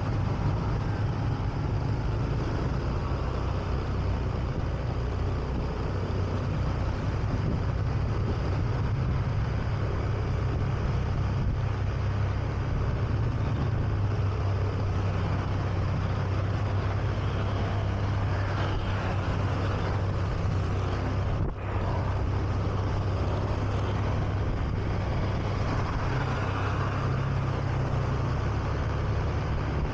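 Honda Beat scooter's single-cylinder engine running steadily while riding through traffic, heard from the rider's seat with a constant low road-and-wind rush over it.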